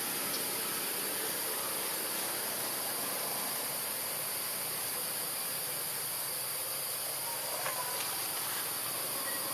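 Steady high-pitched chorus of insects buzzing without a break, with a short faint chirp about eight seconds in.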